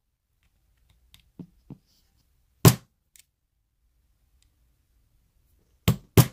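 Sharp metal-on-metal hammer taps on a tool held against a Medeco cam lock cylinder, knocking down a part that sticks up: one tap a little before halfway, then two quick taps near the end, with a few faint clicks between.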